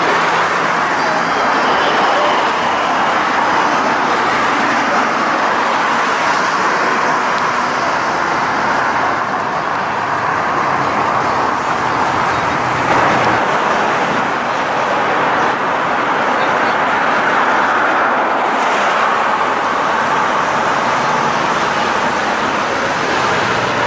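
Steady motor-vehicle noise with no revving.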